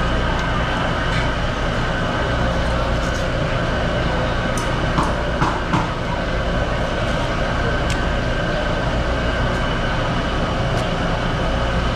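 Steady machine hum with a constant whine, and a few sharp knocks of a knife against a plastic cutting board about five seconds in as fish is cut.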